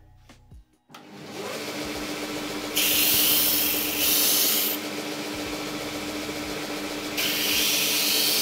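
GIB BDS-610 belt-disc sander's motor starts about a second in and comes up to a steady hum. A wooden bar is pressed against the spinning 254 mm sanding disc twice in quick succession, a loud gritty hiss each time, and again from about seven seconds in until the end.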